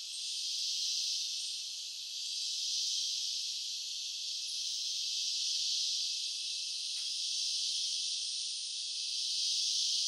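Dense insect chorus: a steady high-pitched hiss that swells and eases slightly every couple of seconds.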